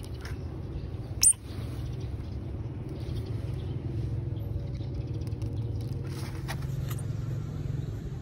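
Baby otter giving one short, high squeak about a second in, over a steady low rumble.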